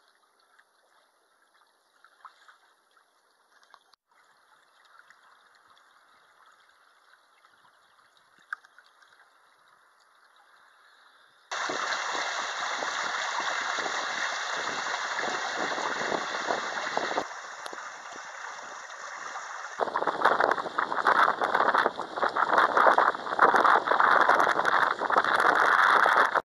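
Water rushing and splashing past the hull of a sailing proa. It is faint at first, comes in loud about eleven seconds in, dips for a few seconds, then is louder and more uneven near the end.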